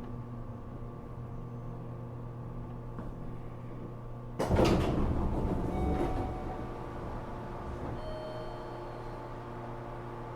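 A sliding door on a stationary JR Kyushu 415 series electric train moves with a sudden thump and a short rush of noise about halfway through that dies away over a second or so. The standing train's onboard equipment hums steadily.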